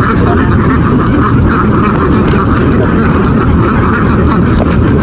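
A large flock of ducks quacking together in a dense, steady din, over a low steady rumble.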